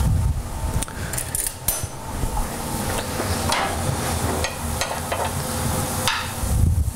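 Carrots sautéing in a frying pan: a steady sizzle, with several sharp knocks and scrapes as the metal pan is moved and shaken on the gas range's grate, and heavier thumps at the start and near the end.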